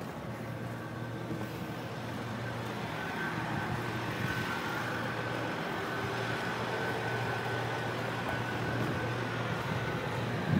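Steady mechanical hum with a faint high whine, slowly getting louder: a moored ship's running machinery heard on its open deck.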